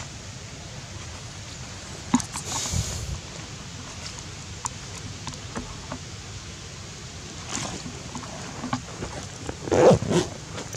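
Steady outdoor background hiss with scattered light clicks and rustles, and a brief louder burst of noise about ten seconds in.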